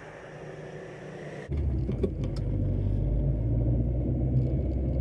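Car engine and road rumble heard from inside a moving car. A fainter hiss at first gives way abruptly, about a second and a half in, to a much louder low rumble.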